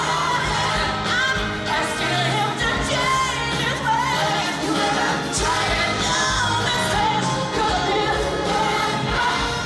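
Live pop band with a lead singer performing a song, the melody sung over a full band backing.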